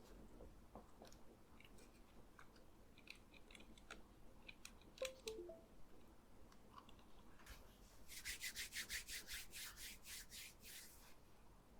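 Near silence with faint scattered ticks, then about three seconds of rapid, evenly spaced scratchy rubbing strokes starting about eight seconds in.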